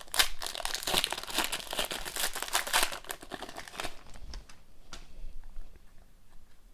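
A trading card pack wrapper is torn open and crinkled for about four seconds. Then come quieter, sparser sounds of the cards being handled.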